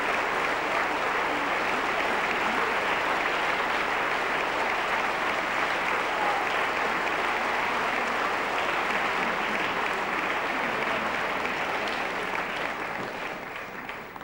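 Audience applauding steadily in a concert hall, the clapping dying away near the end.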